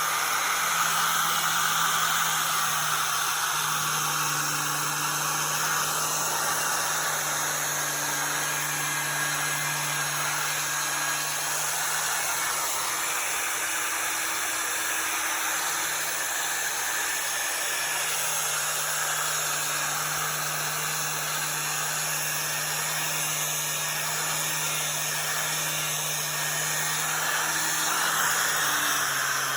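Milwaukee 11-amp 4½-inch angle grinder running steadily with a twisted knotted wire wheel, scouring paint and rust off a steel door. A steady motor hum sits under the scratching noise, its pitch sagging slightly now and then as the wheel is pressed in.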